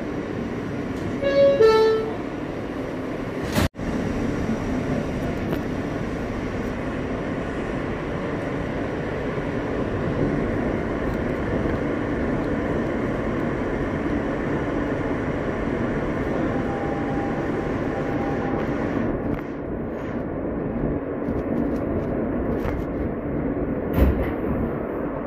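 New York City subway car running along the track, heard from inside: a steady rumble of wheels and motors on the rails. A short horn-like tone sounds between one and two seconds in, and the sound cuts out for an instant a few seconds in.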